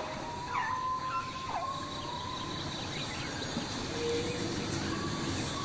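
Tropical rainforest ambience: a steady insect drone with a few short, sliding bird whistles in the first two seconds.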